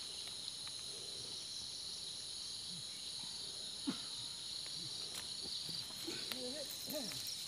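Steady, high-pitched chorus of insects shrilling in the vegetation, with one short click about four seconds in.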